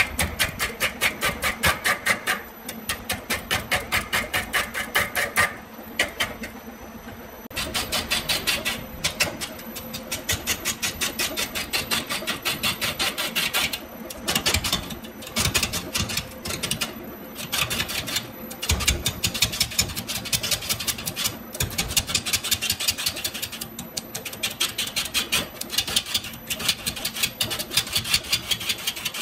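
A turning tool cutting a piece of bamboo spinning on a wood lathe: a rapid, even clatter of ticks in runs broken by short pauses, over the lathe motor's steady hum.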